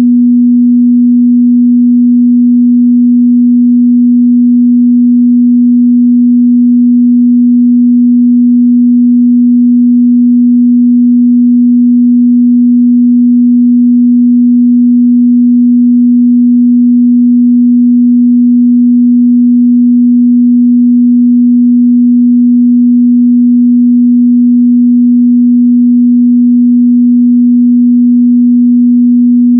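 A steady, loud 243 Hz sine-wave test tone, one unchanging pure pitch in the mid-bass.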